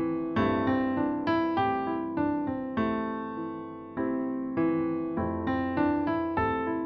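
Piano-style keyboard playing a quick run of single notes, about three a second, that climb and fall in a riff pattern. Each note decays before the next, with a short break a little past the middle.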